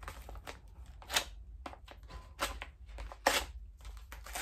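A small knife slitting open a kraft paper mailing envelope: several short cutting strokes through the paper, the loudest about three seconds in.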